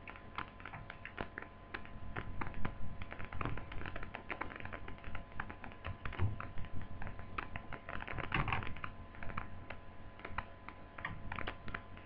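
Small, irregular clicks and taps of screws being set into the plastic case of a Toshiba laptop and handled with a screwdriver, in quick uneven runs.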